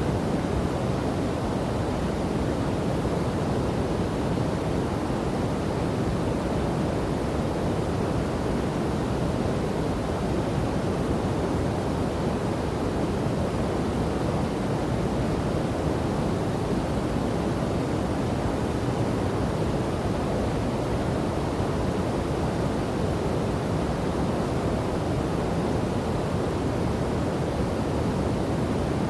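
Steady, unbroken rush of a river and waterfall, an even low rushing sound with no distinct splashes or changes.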